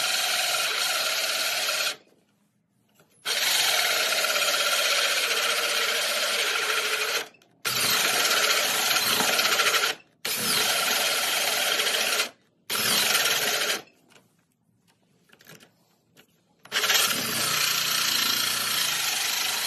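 Ryobi cordless drill turning a 4-inch hole saw through a sheet of board: a loud rasping cutting noise in long runs that stops and restarts several times, with a longer pause near the end. The drill is labouring with the big saw.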